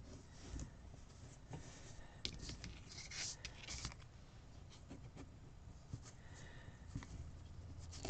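Faint scrapes and rustles of a metal ruler being moved over paper planner pages, a few soft swishes coming close together a few seconds in, over a low steady hum.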